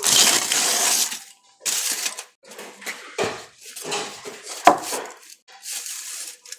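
A second of loud rustling, then a run of separate clinks and knocks as small kitchen items such as cups and utensils are handled and set down on a hard surface.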